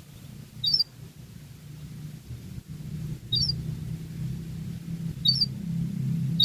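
Domestic canary giving short, sharp, high chirps a couple of seconds apart, three or four in all, over a steady low hum.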